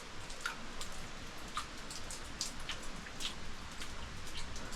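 Water dripping from the wet rock of a cave: many small drops splashing at uneven intervals, several a second, over a faint steady hiss.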